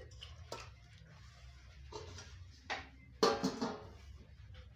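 A metal spoon clinks against an aluminium cooking pot a few times, and a metal lid is set down on it with a louder ringing clatter about three seconds in, over a steady low hum.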